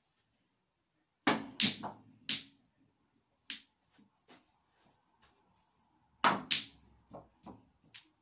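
Two shots on a mini snooker table, about a second in and about six seconds in: each a sharp clack of cue tip and balls striking, followed by a few lighter knocks as the balls hit cushions and each other.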